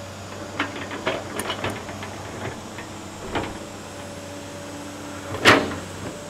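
Tracked excavator's diesel engine running steadily while its bucket digs into earth and stones, with a string of knocks and scrapes and one loud clunk near the end.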